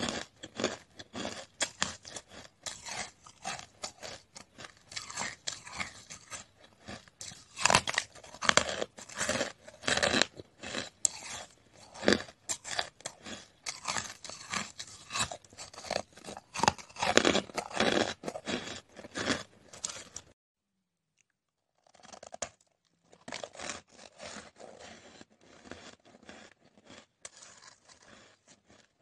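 Hard frozen coloured ice being bitten and chewed, a dense run of sharp, crackling crunches. The sound cuts out dead at about 20 seconds, and about two seconds later quieter crackling of ice starts again.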